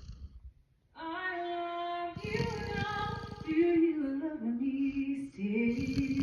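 A woman singing a melody with music, starting about a second in after a short pause. The tail of a dog's snore fades out at the very start.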